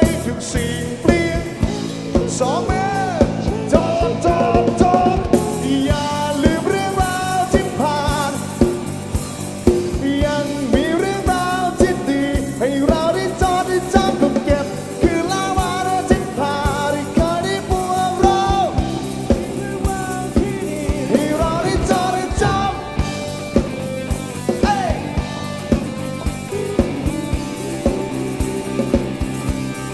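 Live rock band playing a Thai rock song: a male lead singer over guitar, bass and a drum kit keeping a steady beat.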